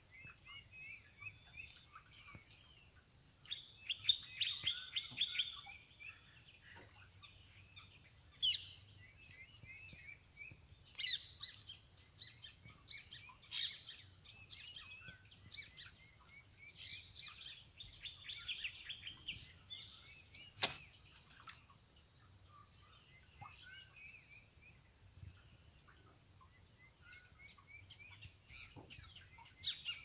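Steady, high-pitched chorus of insects, with bursts of short chirping calls from small birds scattered through it. One sharp click about two-thirds of the way through.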